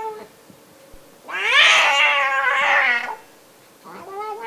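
Bengal cat yowling as it chews at its own tail: one long, loud call about a second in that rises and then falls in pitch, with the start of another call near the end.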